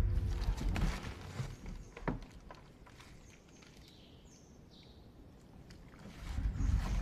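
Low thumping and rustling of footsteps and movement on a wooden floor, loudest near the start and again near the end, with a single sharp click about two seconds in. Faint, short, high chirps sound in the background.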